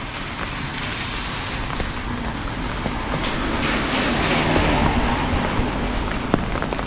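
A vehicle passing in the street: its noise swells around the middle and fades, over a steady hiss of background noise.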